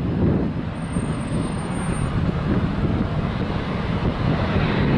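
Steady rumble of a jet airliner's engines, with wind buffeting the microphone.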